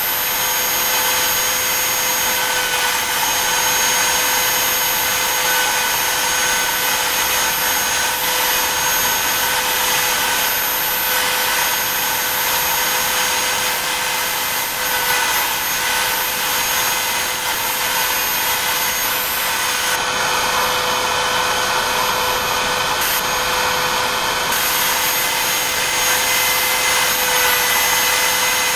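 BobsCNC E3 desktop CNC router's spindle running at high speed as the bit carves stars into a wood panel. It is a steady, high whine made of several tones, and the pitch dips slightly now and then as the load on the bit changes.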